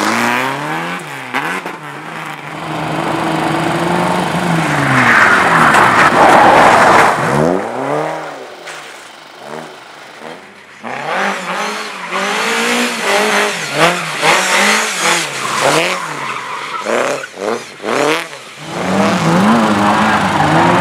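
Slalom race car's engine revving up and falling back over and over as the driver works the throttle through the course, with rapid throttle lifts and blips in the second half. A loud rush of skidding tyre noise peaks about five to seven seconds in.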